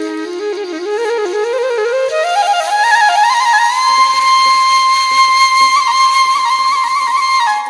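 Solo flute music in a Balochi folk style. The melody climbs in ornamented steps, then holds a long high note with small trills before breaking off near the end.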